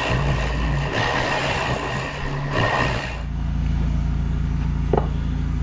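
Milling cutter cutting metal off the face of a band saw transmission casting. About three seconds in the cut ends and only the machine's steady motor hum is left, with one sharp click near the end.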